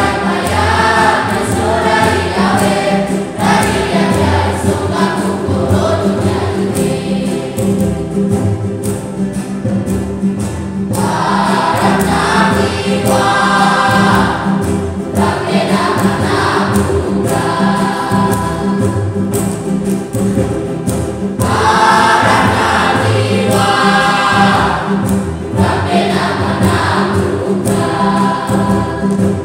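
A youth church choir singing a Christian song in the Wamena language.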